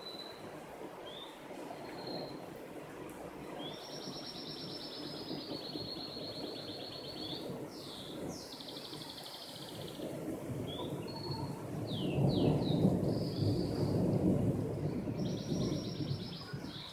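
Thunder rumbling low, swelling to its loudest a little past the middle and then easing. Over it a songbird repeats high trilled song phrases.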